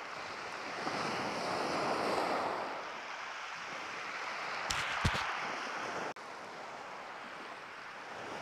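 Sea surf washing on a shingle beach with some wind on the microphone, the wash swelling and easing. A couple of sharp knocks about five seconds in.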